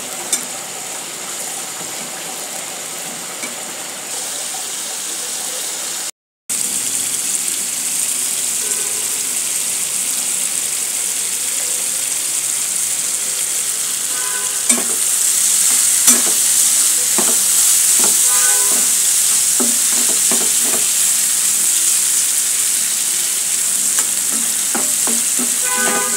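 Prawns in a bubbling masala sauce sizzling steadily in a frying pan while a spatula stirs them. The sound drops out for a moment about six seconds in, the sizzle grows louder about halfway through, and the spatula's scrapes and clacks on the pan come more often in the second half.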